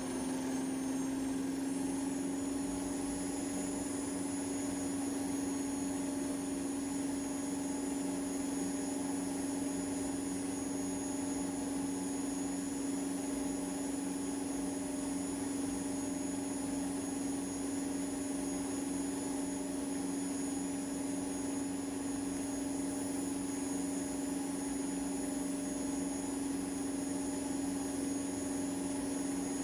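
Servis washing machine on a fast spin cycle (1800 rpm), its motor and drum running at a steady speed: a constant hum with a thin, high whine above it.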